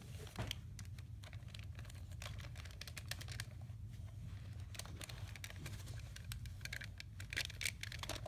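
Irregular small clicks and rustles of objects being handled right against the microphone, over a steady low hum.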